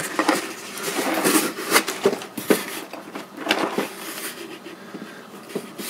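Hands rummaging through bagged small parts and a cardboard box: plastic bags crinkling, with irregular small clicks and knocks.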